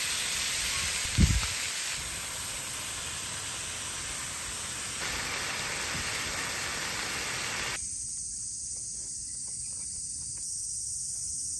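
Pork and cabbage sizzling in a hot frying pan on a portable gas stove, a steady hiss that stops about two-thirds of the way through. A short, low thump about a second in is the loudest moment.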